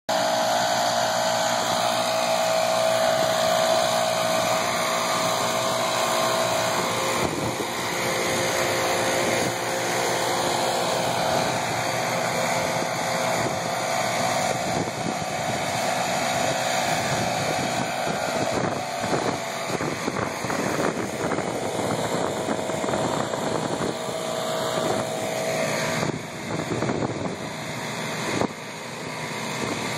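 Gas backpack leaf blowers and small turf-machine engines running together: a steady engine drone, with an even high hum through the first several seconds. Near the end the level dips briefly twice.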